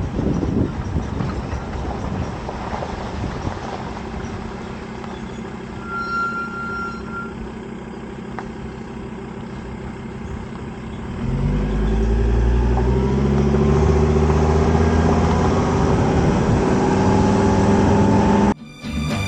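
Vehicle engine running over wind noise; about eleven seconds in it grows louder, its pitch slowly rising as it pulls away.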